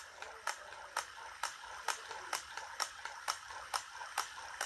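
Magnetic gyro wheel toy spinning along its metal wire rail, with an even run of sharp clicks, about two a second.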